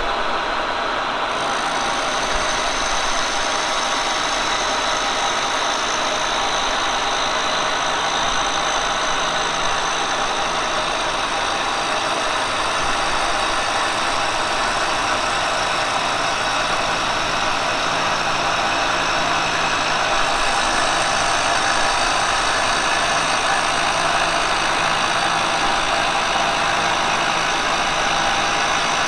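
A Kearney & Trecker milling machine taking a face-milling pass with a 3-inch Tungaloy face mill across a cast iron straight edge: a steady cutting sound with several high, steady tones over the machine's running. The higher tones come in about a second in, as the cutter enters the work.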